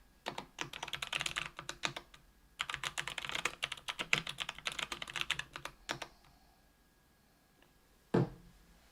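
Typing on a 65% aluminium mechanical keyboard with lubed Kailh BOX Brown tactile switches on an aluminium plate: rapid key clacks in two bursts that stop about six seconds in. A single loud thump comes near the end.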